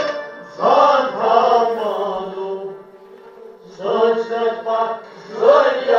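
A voice singing a Kashmiri Sufi kalam in three long, wavering phrases with short pauses between them, over a steady instrumental drone.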